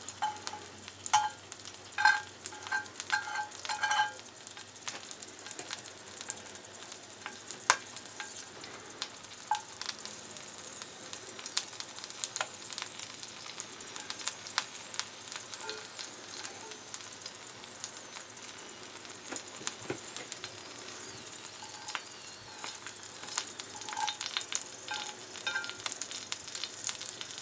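Grasshoppers frying gently in shallow vegetable oil in a cast-iron skillet as they crisp up: a steady sizzle with many small crackles and pops. In the first few seconds there are a few louder clinks of a metal fork against the pan.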